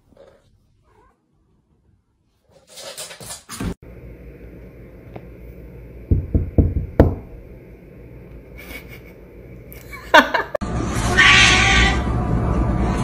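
Domestic cats meowing and yowling, loudest in a long meow near the end.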